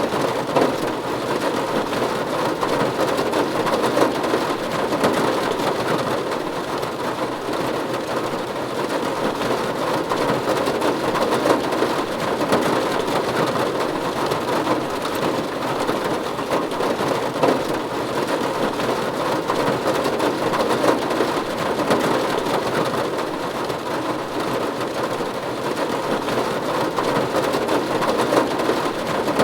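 Steady rain falling on a roof: a dense, even spread of countless small drop impacts that holds at the same level without let-up.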